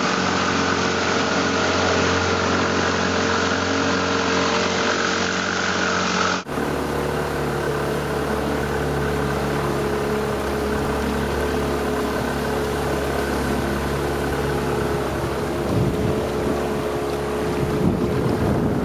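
Small boat's outboard motor running at a steady speed, with wind and water noise; the sound changes abruptly about six seconds in.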